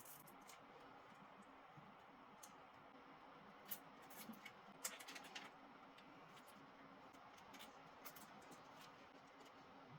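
Near silence: room tone with a few faint, sharp clicks and scrapes, bunched together around the middle.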